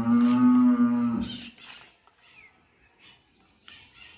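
A single long, moo-like call, held at a nearly steady pitch and ending about a second and a half in, followed by a brief scraping rasp.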